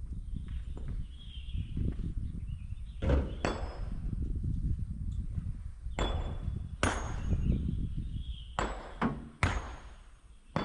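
Kobelco hydraulic excavator's diesel engine running with a low rumble, broken from about three seconds in by several sharp metallic clanks and knocks, some coming in quick pairs.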